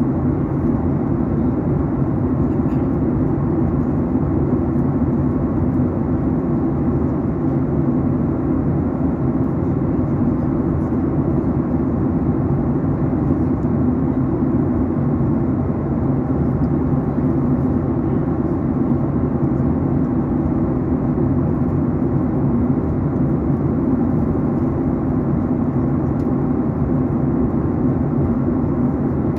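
Steady cabin noise of a Boeing 737 MAX 8 descending: an even low rumble of airflow and engine, unchanging.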